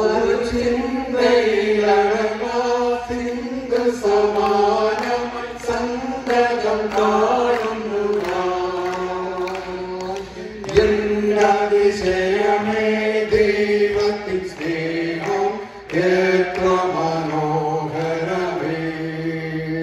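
A group of voices singing a hymn together into stage microphones, in long held notes.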